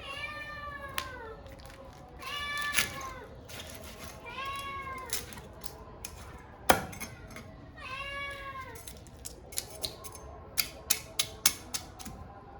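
A cat meowing four times, a couple of seconds apart, each call rising and then falling in pitch. A single sharp knock comes about two-thirds of the way through, and a quick run of sharp clicks follows near the end.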